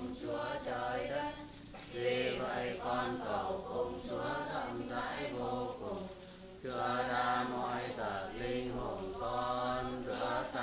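Many voices of a congregation chanting together in unison, in phrases broken by short pauses about two seconds and six and a half seconds in.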